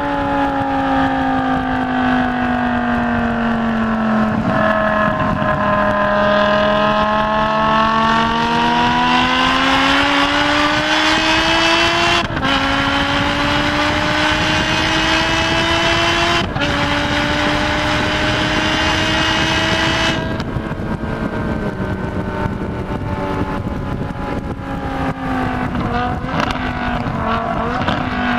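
BMW M6 engine pulling hard on track. Its note sags through a corner, then climbs through the gears with two quick upshifts about 12 and 16 seconds in. About 20 seconds in the driver lifts off and the note falls away under engine braking for the next corner, with steady wind and road noise throughout.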